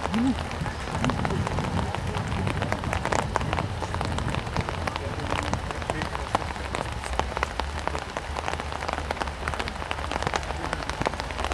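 Steady, dense crackling patter over a low rumble, like drops or wind hitting close to the microphone, with a brief distant shout about a second in.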